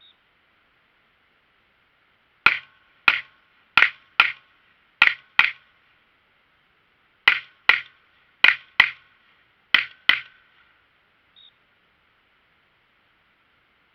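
Glock 17 9mm pistol fired twelve times, mostly in quick pairs, with a pause of about two seconds after the first six shots.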